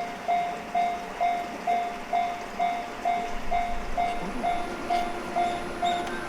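Japanese railway level-crossing warning bell ringing, a single electronic tone struck about twice a second, signalling that a train is approaching or passing.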